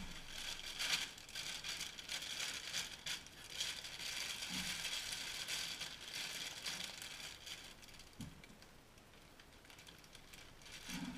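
Clear plastic cereal bag crinkling and rustling as it is handled, twisted shut and clipped, busiest over the first eight seconds and quieter near the end.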